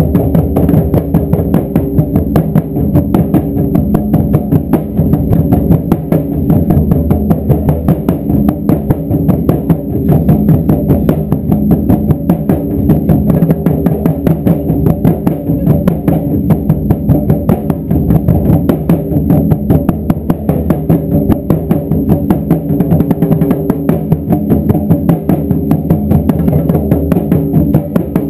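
Japanese taiko drums pounding out a continuous, driving beat, with dense, rapid strikes and deep low-pitched booms.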